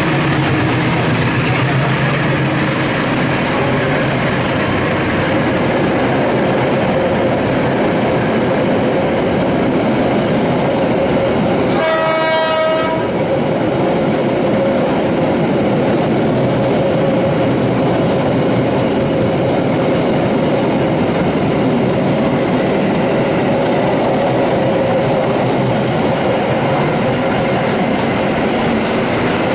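A CC206 diesel-electric locomotive passes close by, followed by a long train of stainless steel passenger coaches running through with steady wheel-on-rail noise. A short pitched tone sounds once about midway.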